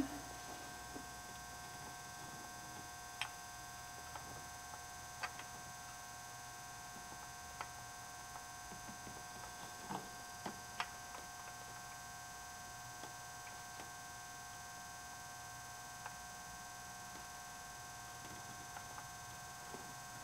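Faint steady electrical hum with about a dozen scattered light clicks and taps, a cluster of them about ten seconds in, from hands working a MAP sensor into its port on an engine intake manifold.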